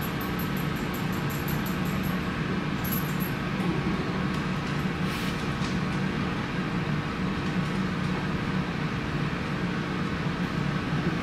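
Steady mechanical hum, like a ventilation or appliance running, with a few faint soft rustles as a cloth scarf is handled near the microphone.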